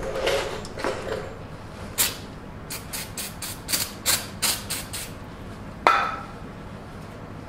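Aerosol brake cleaner sprayed in a string of about ten short squirts into a wheel hub's bearings, flushing out the old grease. A single sharp metallic clank follows near the end.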